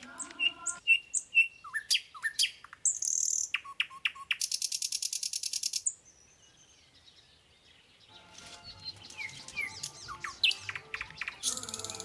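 Birds chirping and calling, with a fast, even trill lasting under two seconds. Near the end, hot oil in an iron kadai starts to sizzle loudly as a piece of spice-marinated fish goes into it.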